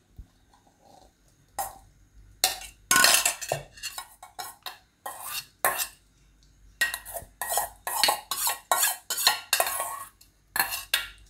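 A spoon scraping and clinking against a pan in a run of quick strokes, starting about two seconds in, as cooked vegetable masala is scraped into soaked semolina batter for rava idli.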